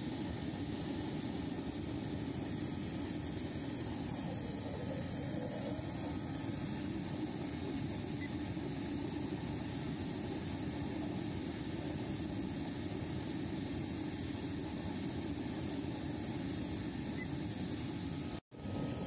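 Burner running steadily under a steel pan, heating panned gold concentrates to roast off the sulfur; a steady, even roar, cut off briefly near the end.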